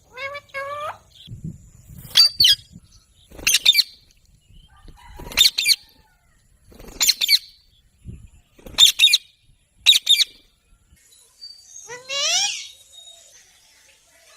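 Ringneck parrot calling repeatedly: short, harsh, loud squawks about every one and a half seconds, with a rising whistled call at the start and another near the end.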